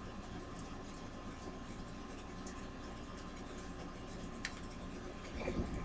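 Room tone: a steady low hum and hiss with a faint steady tone, one light click about four and a half seconds in, and a few soft knocks near the end.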